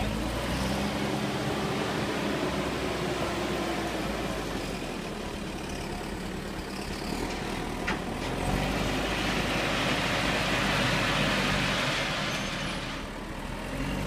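JCB 3CX backhoe loader's diesel engine running as the machine works, growing louder about halfway through. Gravel crunches and scrapes under the lowered front bucket and tyres.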